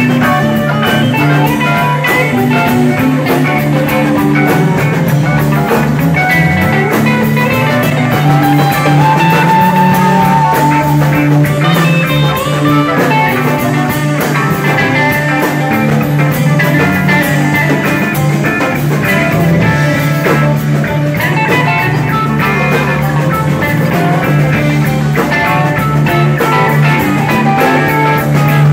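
A live rock band jamming without vocals: electric guitars over electric bass and a drum kit. About seven seconds in, a lead line slides up and holds one long high note for a few seconds.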